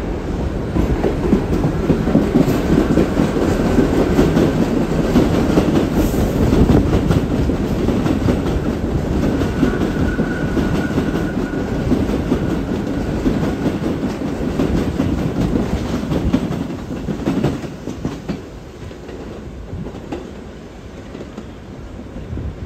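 New York City subway train running past on an elevated viaduct, its wheels clattering along the rails. Loud for most of the time, then fading as it pulls away about 18 seconds in.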